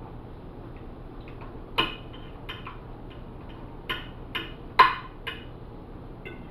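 A metal fork clinking and scraping against a plate about eight times, in short sharp clicks, the loudest just before five seconds in, over a faint steady hum.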